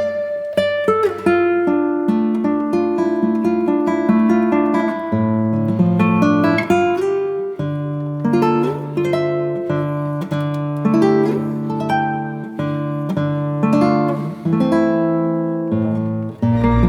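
Background music: plucked and strummed acoustic guitar playing a slow melody with chords.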